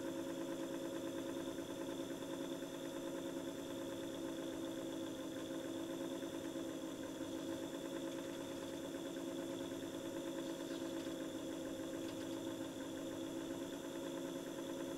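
Vintage watchmaker's lathe running steadily under its electric belt-drive motor, a constant hum, while a hand graver turns a small brass workpiece.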